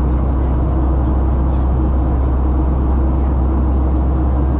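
Boeing 737 cabin noise in flight: a loud, steady drone of the jet engines and airflow, deep at the bottom with a constant hum over it.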